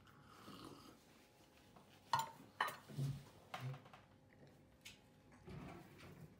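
Tableware handled at a table: two sharp clicks about two seconds in, then two soft low knocks, and a soft handling sound near the end as tomato slices are laid on the lahmacun.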